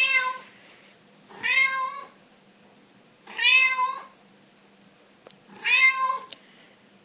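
A black cat meowing four times, about every two seconds. Each meow lasts under a second and rises then falls in pitch.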